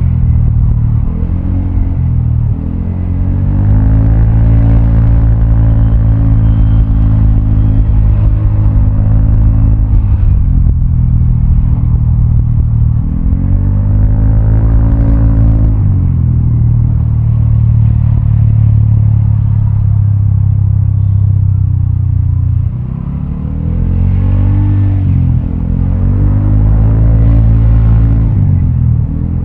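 Vespa scooter's single-cylinder four-stroke engine through a Prospeed Black CNC aftermarket exhaust, ridden on the road: revs climb and hold as the throttle is opened, then drop off when it is eased, several times over, under a steady low rumble.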